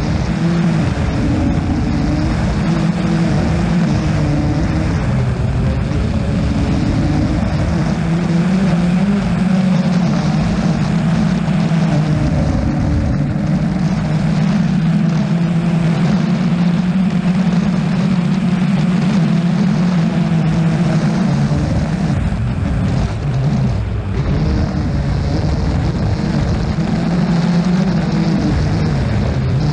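Rally car engine running at fairly steady revs, a continuous drone that holds its pitch with only small wavers.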